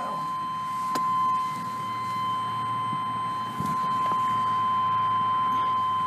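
A steady, unbroken high-pitched electronic beep tone, with a single sharp click about a second in.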